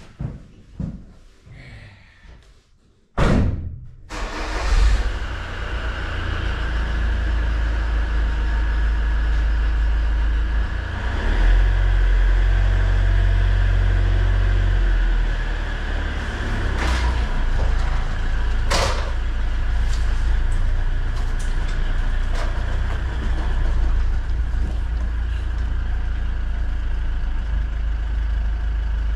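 Freshly rebuilt Volvo TD 100 turbocharged inline-six diesel engine starting suddenly about three seconds in, then running steadily, with the revs held higher for a few seconds around the middle.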